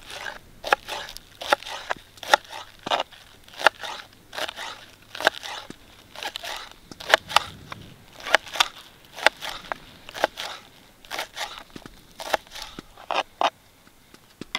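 Kitchen knife slicing through green onions and tapping on a plastic cutting board, a crisp crunch with each cut. The cuts come in irregular runs, roughly two a second.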